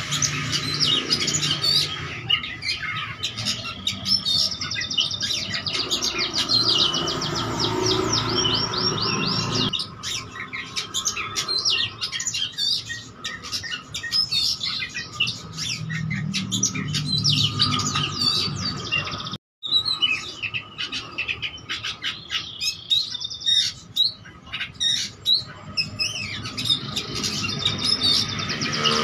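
Oriental magpie-robin (kacer) singing continuously in a long, varied song of short whistled phrases and fast trills, packed with mimicked phrases ("isian"). The sound drops out for a moment about two-thirds of the way through.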